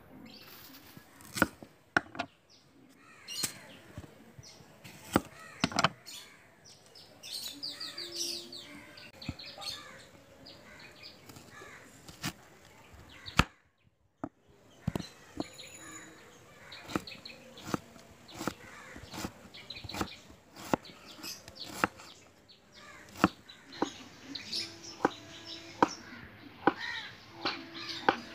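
A kitchen knife chopping red onion on a wooden cutting board, with sharp, irregular knocks. Birds chirp in the background.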